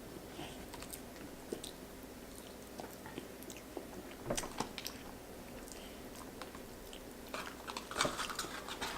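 Close-up eating sounds: faint biting and chewing with scattered small crunches and mouth clicks, a little cluster of them about halfway through.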